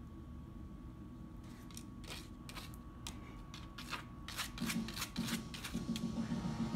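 Shiba Inu chewing a lettuce leaf: crisp crunching clicks, sparse at first and coming quicker in the second half.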